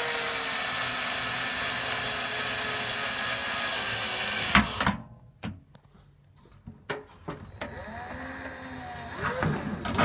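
Power drill with a 3 mm bit running steadily as it bores through the plastic and metal of a microwave's door-latch bracket. It stops about four and a half seconds in with a couple of sharp clicks.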